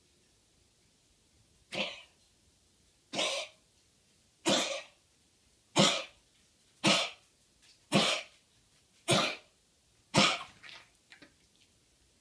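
A West Highland white terrier coughs hard and gruffly, eight times about a second apart, then trails off in a few weaker hacks. It is a chronic cough that the owner links to bronchitis, and it has worsened despite bronchodilator and antibiotic tablets.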